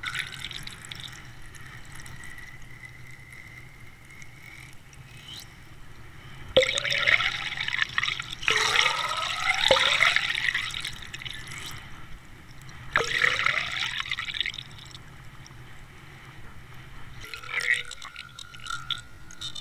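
Water and air bubbles rushing past an underwater camera towed on a trolling line, heard through its housing. The sound comes in several loud surges of gurgling, each with a rising tone, between quieter stretches of hiss.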